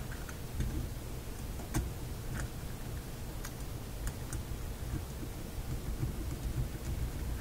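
Light, irregular clicks and taps from a Philco shadow meter and its leads being handled and pressed into place on the radio chassis, over a low steady rumble.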